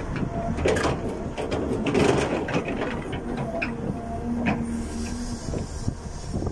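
Excavator running, with a steady low engine rumble and a run of clanks and rattles, thickest in the first few seconds.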